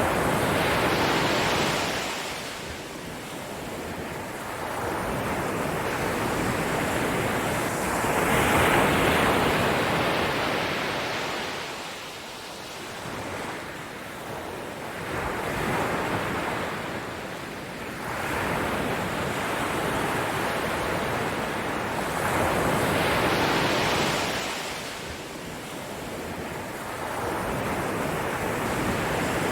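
Ocean waves washing onto a shore, each surge swelling and falling back about every seven to eight seconds, with no music.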